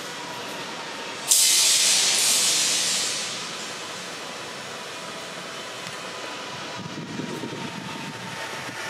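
A sudden loud hiss about a second in that fades away over about two seconds, over the steady background hum of a large station hall with a faint steady tone in it.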